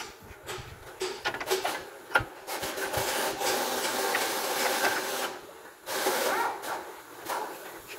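Splined outer CV joint stub shaft of a new front drive axle being worked into the wheel hub by hand: a few metal knocks, then long stretches of scraping and rubbing as the splines slide into the hub.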